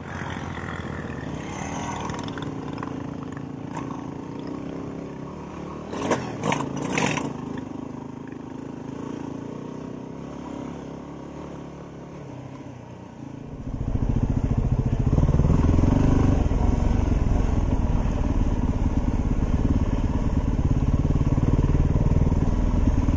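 Dirt-bike engines running, with a short burst of revving about six seconds in. About fourteen seconds in, the Yamaha WR250R's single-cylinder engine pulls away and runs much louder under way on the trail.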